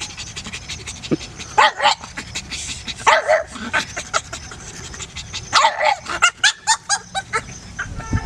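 Pug puppy barking in short yappy bursts, about two seconds in, three seconds in and again near six seconds, then a quick run of short yips: excited barking at people she sees.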